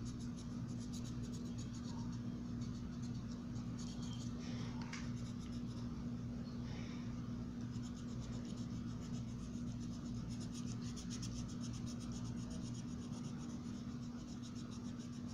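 A green colouring tool scratching across paper in quick back-and-forth strokes, filling in a drawing, over a steady low hum.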